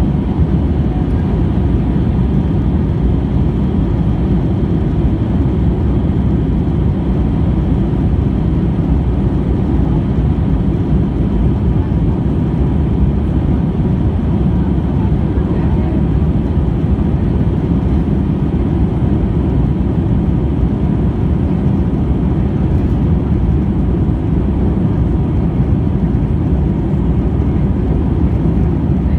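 Airliner cabin noise in flight: a steady, even low roar of the jet engines and airflow, heard from inside the cabin at a window seat.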